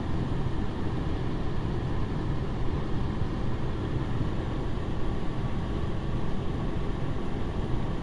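Steady rumble and hiss of a vehicle running, heard from inside its cab, with no distinct knocks or changes.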